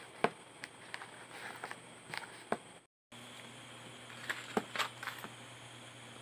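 Pages of a ring-binder planner being turned and handled: scattered light taps and soft paper rustles over a steady hiss and low hum. The sound cuts out briefly about three seconds in.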